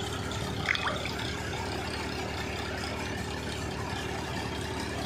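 Tractor-driven multicrop thresher running steadily, with the tractor engine powering it at a constant speed. One short sharp sound stands out a little under a second in.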